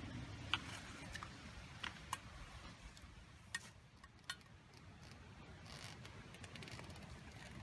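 Wood crackling in a campfire: a few sharp, irregular pops and snaps, with a soft hiss near the end.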